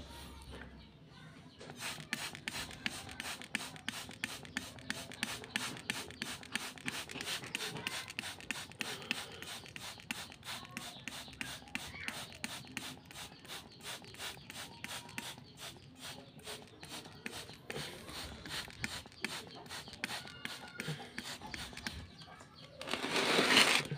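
Plastic trigger spray bottle squeezed over and over, each pull giving a short hiss of mist, about three squirts a second, as potted jackfruit cuttings are misted. A louder burst of noise lasts about a second near the end.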